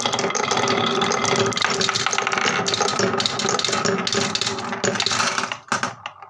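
Several marbles rolling and rattling around a grooved wooden funnel bowl and dropping through its centre hole onto the wooden track below, a dense clatter of small clicks that fades away about five and a half seconds in.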